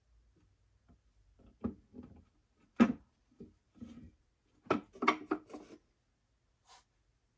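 Large outside micrometer's frame and a steel setting rod knocking and clunking against their fitted wooden case as the micrometer is seated and the rod is lifted out: a few separate knocks, the sharpest about three seconds in, then a quick cluster of clunks near five seconds.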